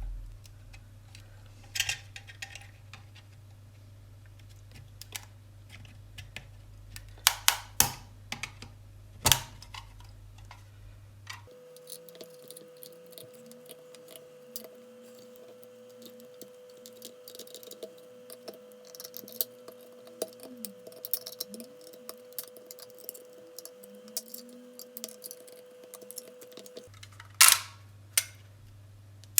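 Scattered sharp plastic clicks and knocks as the clip-fastened plastic case of a smart plug is pried open, its clips snapping and the shell creaking. The loudest cracks come about a quarter of the way in and near the end.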